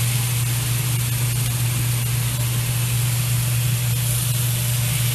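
Marinated lamb chop racks sizzling as they sear in hot oil in a tilt skillet: a steady hiss with a steady low hum beneath it.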